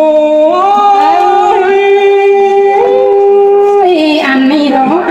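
A single voice singing a Thái ethnic folk song, holding long notes and sliding up between them, then moving to shorter notes near the end.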